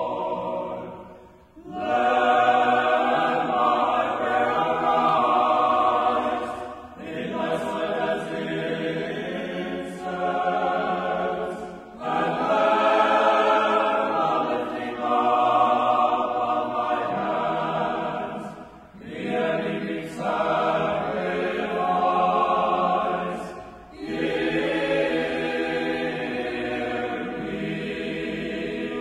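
Unaccompanied choir singing Orthodox liturgical chant. It comes in sustained phrases of several seconds each, with short pauses between them.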